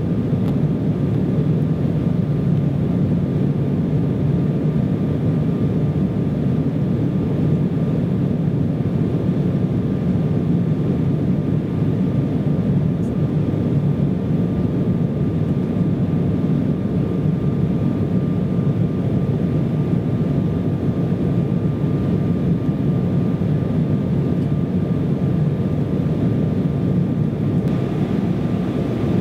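Steady cabin noise inside an Embraer E170 airliner climbing after takeoff: a deep, even roar of its GE CF34 turbofan engines and the airflow, with a thin steady whine above it.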